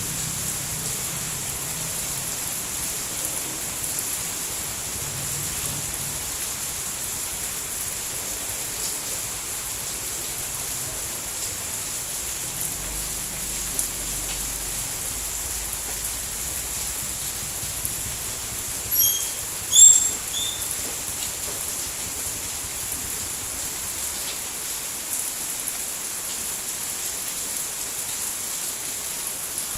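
Steady rainfall, an even hiss without pauses. About two-thirds of the way in, a few short high chirps sound briefly over the rain.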